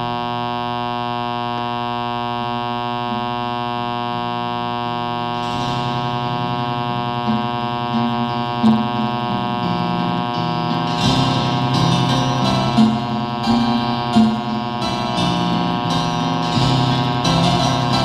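Music played through a loudspeaker driven by an LM1875 chip amplifier whose power supply has no filter capacitors, over a steady mains hum from the unsmoothed rectifier ripple. The music grows stronger about five seconds in and livelier from about eleven seconds.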